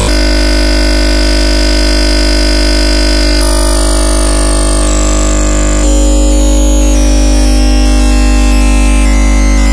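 Oscilloscope-music audio from OsciStudio and Max MSP: the signal that draws the circle and square on the XY display, a loud, dense synthetic buzz of many steady tones over a deep hum with hiss. It shifts abruptly about a third of the way in, when a high tone starts sliding slowly downward, and the low hum grows louder just past halfway.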